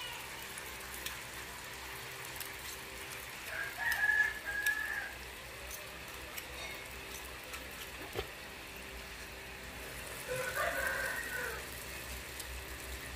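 A rooster crowing twice, first about three and a half seconds in and again about ten seconds in, each crow lasting about a second and a half. Under it runs the faint, steady sizzle of carrot balls deep-frying in hot oil.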